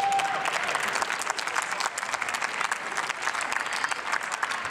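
Applause from members of parliament, many people clapping at once.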